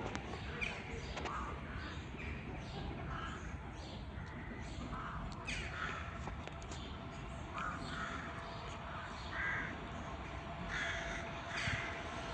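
Birds calling, many short calls repeated at irregular intervals, over a steady low background rumble.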